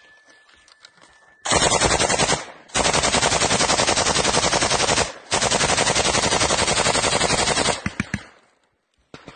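RPK light machine gun firing on full automatic in three long bursts, the first starting about a second and a half in. The last burst trails off into a few single shots.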